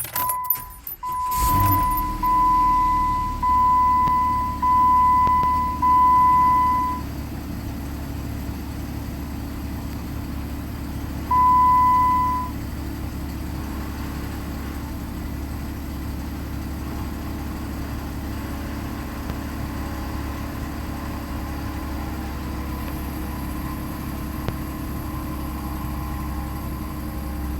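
Jeep engine catching about a second and a half in and settling into a steady idle. A steady beeping warning chime sounds about six times in the first seven seconds and once more around eleven seconds.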